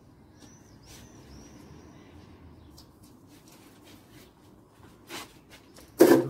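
Laundry being taken down from a clothesline: faint clicks and rustles of clothes and clothespins, with a few short high chirps. Near the end, a loud brief rustling thump as the garment brushes close past the microphone.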